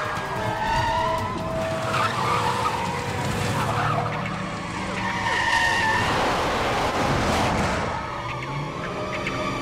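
Film car-chase soundtrack: a Cadillac limousine's tires squeal several times, short pitched screeches over steady engine and road noise.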